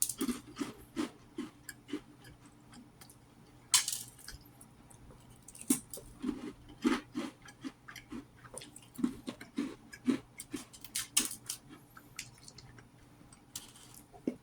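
A person chewing crackers and bread with cheese close to the microphone, with repeated short crunches and mouth sounds. There is a louder crunch or bite about four seconds in.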